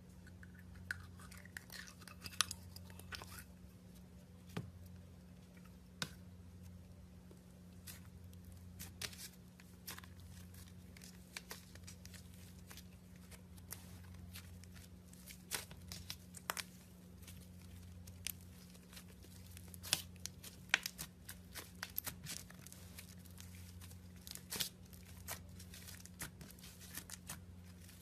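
Slime being pressed and stretched by hand, giving many scattered sharp pops and crackles, over a steady low hum.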